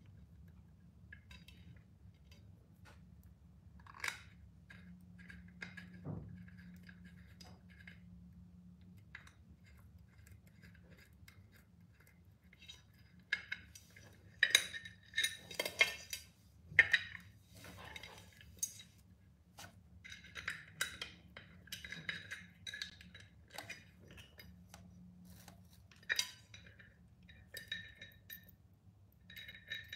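Clinks and taps of small hardware against a tempered glass lid with a steel rim as its handle is fitted, in scattered sharp clicks with a run of louder clinks about halfway through.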